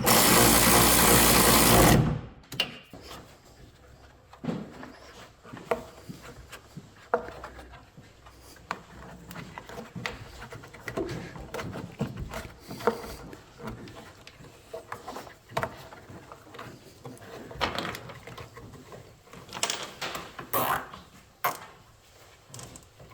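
A power drill runs steadily for about two seconds and stops, followed by scattered light clicks and knocks of parts being handled.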